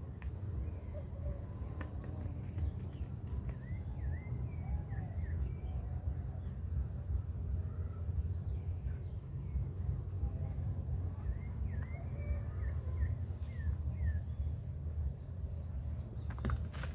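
Rural outdoor ambience: a steady high insect drone with an evenly pulsing cricket-like trill, scattered short bird chirps, and a constant low rumble underneath. A few sharp clicks come near the end.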